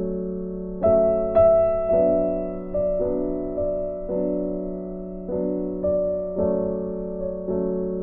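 Background music: slow, gentle solo piano, with notes and chords struck about once a second and left to fade.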